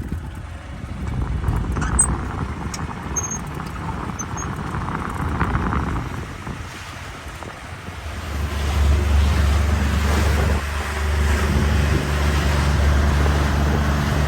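Small fishing boat's outboard motor running under way, with wind buffeting the microphone and water noise; the motor gets louder about eight seconds in as it speeds up.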